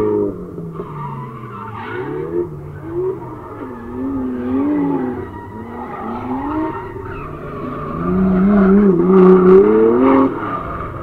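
Drift cars' engines revving up and down as they slide through the corner, with tyres skidding. The sound is loud at the start as one car leaves, quieter in the middle, and loudest from about eight seconds in as a car drifts close by, dropping away suddenly just after ten seconds.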